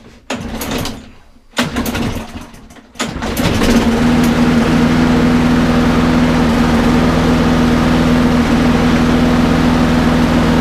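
Walk-behind lawnmower's petrol engine being pull-started: a few short bursts, then it catches about three seconds in and runs steadily at an even speed. The engine has a slight miss, which the owner thinks is probably down to a dirty, worn spark plug.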